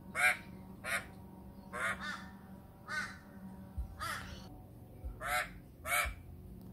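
Australian magpie giving a series of short harsh alarm calls, about one a second, scolding a carpet python in its territory.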